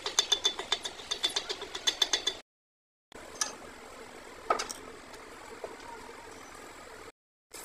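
Hammer rapidly tapping a freshly welded steel roller shaft, about seven ringing metallic strikes a second for a couple of seconds, chipping slag off the weld bead. After a short break, only low workshop background with a few scattered knocks.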